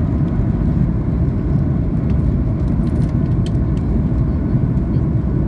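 Boeing 737 jet engines and airflow making a steady low rumble, as heard inside the passenger cabin, with a few faint ticks about three seconds in.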